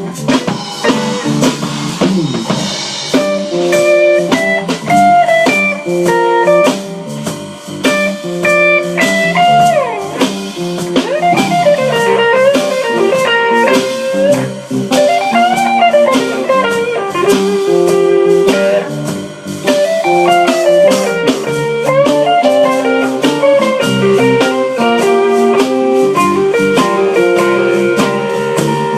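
Blues band playing an instrumental break: a guitar lead with bent notes over a steady drum beat.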